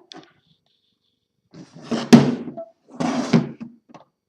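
Old typewriter carrying case being handled: two short bursts of clatter and knocking, the first about two seconds in with a sharp click like its latch snapping.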